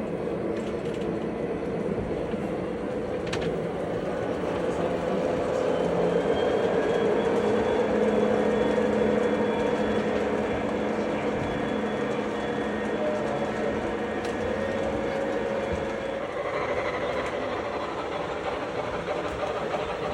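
Train running along the rails with a steady rumble and a few held tones, growing louder toward the middle and easing off after that.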